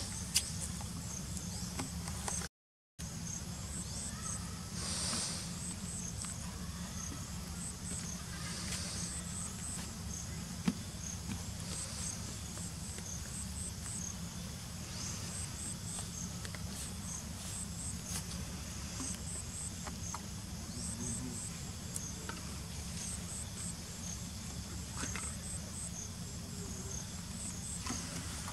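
Insects chirping in short, high, repeated pulses, in little groups, over a steady low hum. The sound cuts out completely for about half a second, two and a half seconds in.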